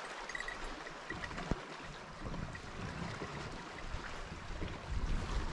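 Small waves lapping and trickling against a plastic kayak's hull, with a single sharp click about a second and a half in. Wind starts buffeting the microphone near the end.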